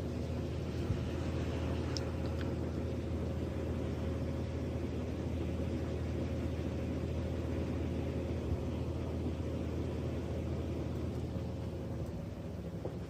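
Steady low hum of a car engine idling, with a faint rumble and no change in pitch.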